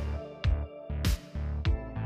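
Background music: an electronic track with a steady beat, sharp drum hits a little under twice a second over held bass notes.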